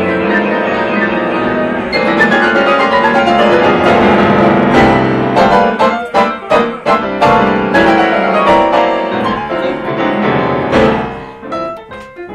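Jazz piano duet on two grand pianos: fast descending runs, then a stretch of hard, repeated chord stabs, with the playing thinning out and dying down near the end.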